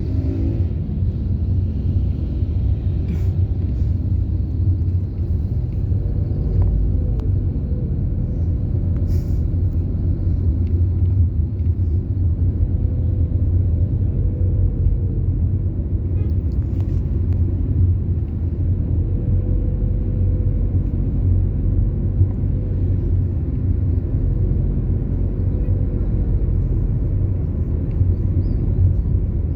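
Car engine and road noise while driving: a steady low rumble that holds even throughout.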